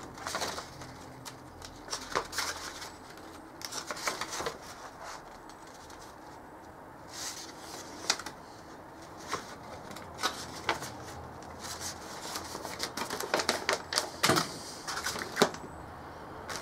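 Paper instruction sheets rustling and crackling as they are unfolded and their pages turned, in irregular short crackles and flicks.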